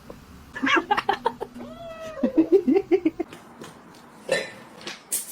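A cat calling: one drawn-out, wavering call beginning about two seconds in and lasting about a second and a half, among a few scattered knocks and a short rustling burst near the end.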